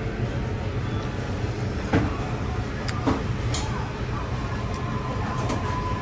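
Steady low hum of a restaurant's background, with two light knocks of ceramic bowls being set down and picked up, about two and three seconds in.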